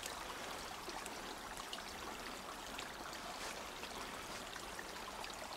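Small woodland brook trickling steadily as it runs down into a pond.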